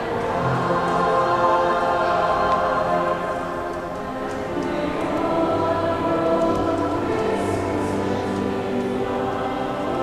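Mixed-voice high school choir singing, with long held chords in many voices.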